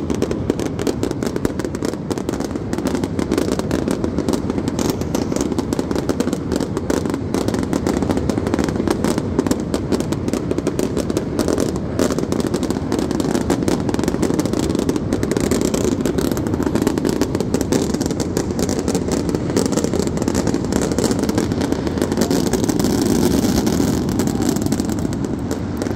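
Fireworks barrage: aerial shells bursting and crackling in rapid succession, so many reports that they run together into one unbroken din.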